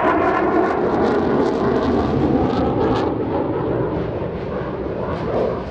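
Eurofighter Typhoon fighter jet's twin EJ200 turbofan engines in flight: a loud, rough jet roar with crackling, easing off slightly near the end.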